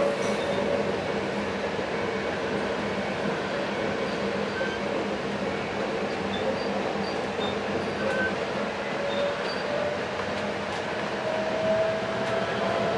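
VTA light rail train running, heard from inside the passenger car: a steady rumble of wheels on the track, with a thin squeal that rises slightly in pitch near the end.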